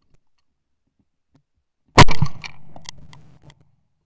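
A shotgun shot fired at a flying duck about halfway in, with a second sharp report right after it and a fading echo.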